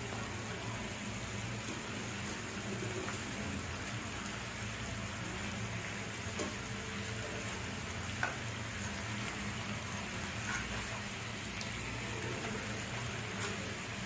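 Chicken pieces sizzling steadily in oil and ghee in a frying pan on low heat, with a few light clicks of metal tongs against the pan as the pieces are turned over.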